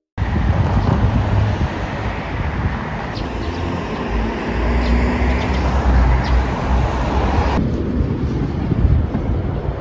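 Outdoor street noise with wind buffeting the microphone, a heavy low rumble under it; the sound changes abruptly about three-quarters of the way through, where one outdoor shot cuts to the next.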